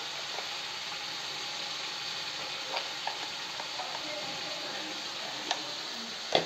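Ground spice-and-onion masala frying in oil in a metal kadhai, a steady sizzle with a few short sharp clicks.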